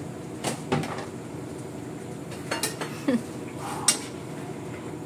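A metal utensil knocking and scraping against a steel wok while stirring noodles: a handful of sharp clinks, the sharpest near four seconds in, over a steady low hum.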